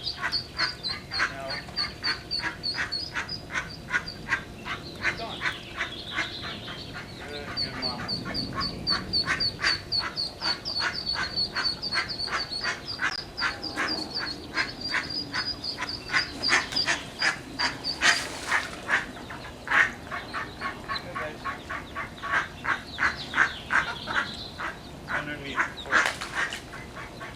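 A brood of ducklings peeping rapidly and without pause, many short high calls overlapping, with duck calls among them. Two brief louder noises cut through, about two-thirds of the way in and again near the end.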